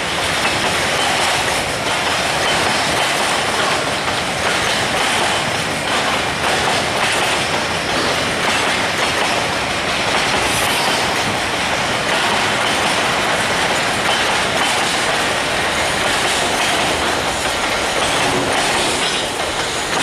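Heavily laden freight train rolling steadily past, loud wagon wheels on the rails with no let-up.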